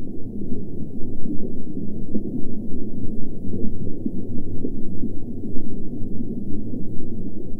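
Muffled, low rumbling rush of water, like sea heard from underwater, with irregular surges in loudness and nothing high-pitched in it.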